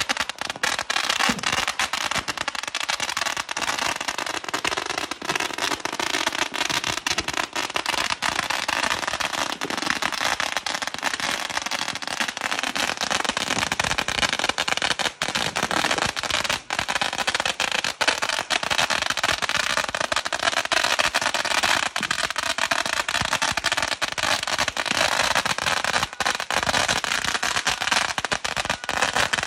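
A long string of firecrackers going off in a rapid, unbroken crackle of pops.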